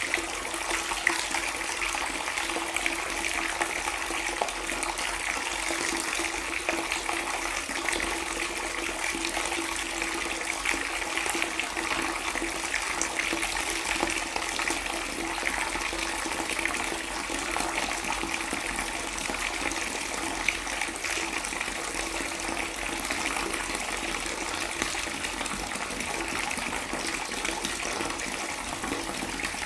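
Water pouring in a steady, unbroken stream, with a constant splashing hiss.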